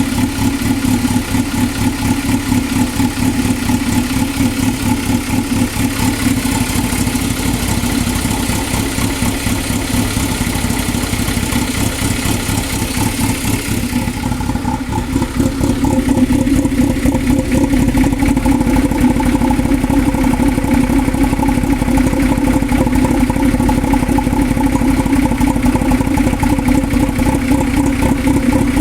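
2000 Toyota MR2 Spyder's 1.8-litre four-cylinder engine idling roughly, with a fast, uneven flutter. A little over halfway through, the high hiss fades and the low hum grows slightly louder.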